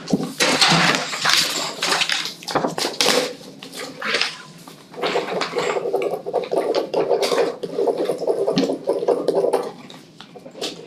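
Sheets of paper rustling and being shuffled on a table, with irregular small knocks and handling noises.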